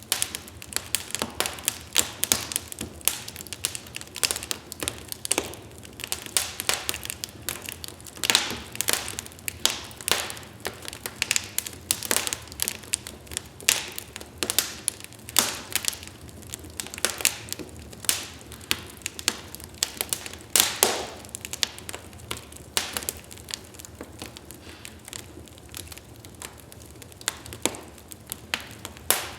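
Wood fire burning in a fireplace, logs crackling and popping in a dense, irregular run of sharp snaps over a faint hiss, with a few louder pops.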